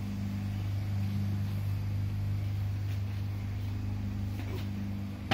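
Steady low hum of running engine-room machinery: a deep, even drone with a fainter higher hum above it, and a few faint ticks near the end.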